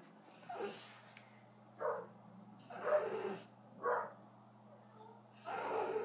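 A Puggle, a beagle–pug cross, making five short, rough vocal sounds in a row; the longest come about three and six seconds in.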